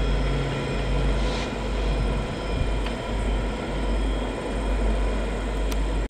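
Norfolk Southern freight train's diesel locomotives running, a steady low rumble with several steady whines over it and a few faint clicks.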